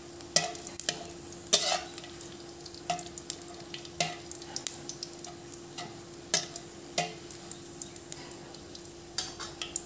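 Spatula scraping and tapping irregularly against a kadai while dried red chillies, a bay leaf and cumin seeds sizzle gently in hot oil for a tempering. A steady hum runs underneath.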